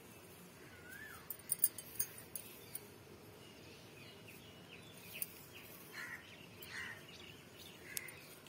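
Crows cawing now and then, with other small bird calls and chirps. A quick run of sharp clicks comes about one and a half to two seconds in, and single clicks come later.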